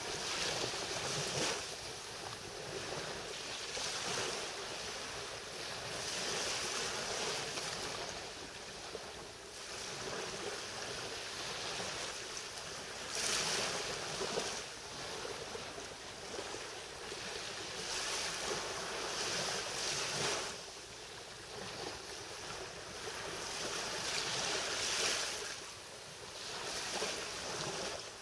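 Small Mediterranean waves lapping onto a sandy shore, each wash swelling and falling back every few seconds.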